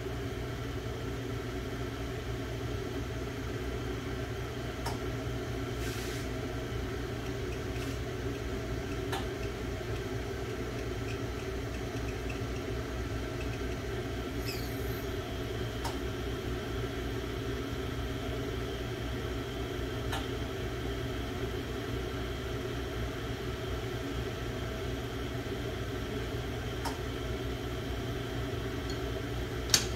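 Steady mechanical hum of a lampworking torch setup and shop equipment running. A few faint light clicks are scattered through it as glass is handled, and there is a sharper click at the very end.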